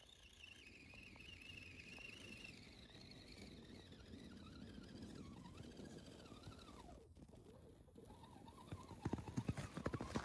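Faint whine of a scale RC crawler's electric motor and gears driving through snow, the pitch sliding and wavering as the throttle changes. A quick series of sharp knocks and crunches comes near the end.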